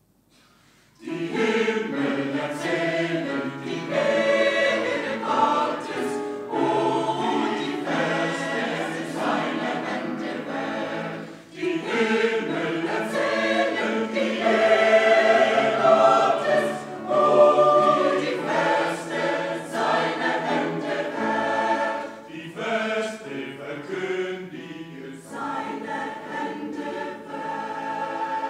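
Mixed choir of men and women singing a hymn in chords, starting about a second in after a short silence, with a brief breath near the middle and the final chord released near the end.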